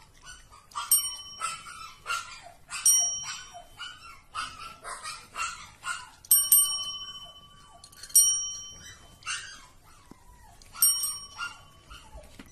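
Service desk bells struck by cats' paws, dinging about five times with one long ring near the middle, among short high animal cries.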